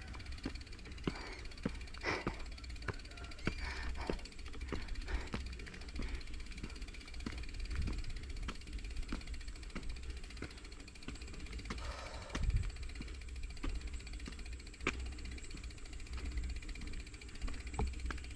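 Bicycle rattling and clicking as it rolls over a rough concrete road, with irregular sharp ticks from its parts and a steady low rumble of wind on the microphone.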